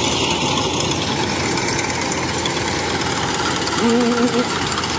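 Kubota DC105X combine harvester's diesel engine running steadily while the machine cuts rice in soft, muddy ground, with a short wavering call about four seconds in.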